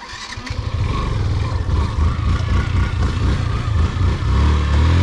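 Motorcycle engine running with a loud, pulsing low rumble that cuts in suddenly. Near the end the engine pitch rises briefly and then drops back.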